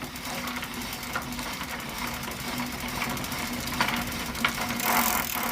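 A small machine running, with a steady hum under fast, even ticking and a few sharper clicks in the second half.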